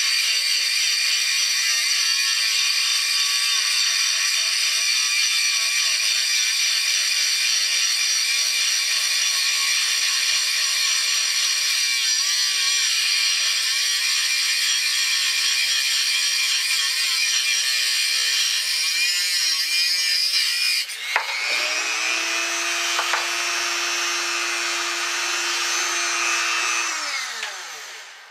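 Dremel rotary tool on a flexible shaft running at high speed, grinding the steel of a knife's tang, a steady high whine. About 21 s in the sound changes abruptly to a steadier hum with a lower note, and near the end the tool winds down.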